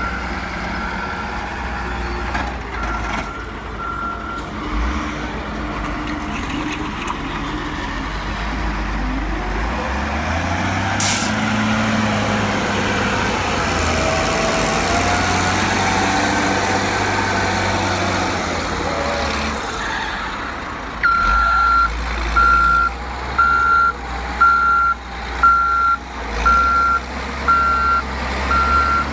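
Heavy diesel construction machinery running, its engine rising in level for several seconds midway, with a sharp click partway through. A reversing alarm beeps, faintly at first, then loud and regular near the end at about one and a half beeps a second.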